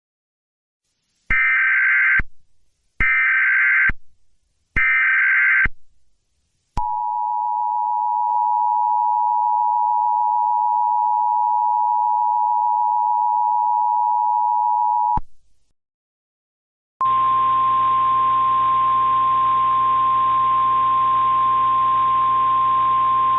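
Emergency Alert System SAME header: three short bursts of warbling data tones. Then the two-tone EAS attention signal, held steady for about eight seconds. After a brief gap comes the single steady 1050 Hz NOAA Weather Radio warning alarm tone over a background hiss.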